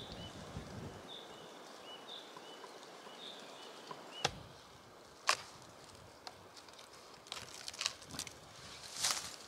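A small bird chirping, short high calls repeated over quiet forest air for about four seconds. Then a knife cutting chaga from the base of a birch trunk: scattered sharp knocks and cracks, coming faster and louder toward the end.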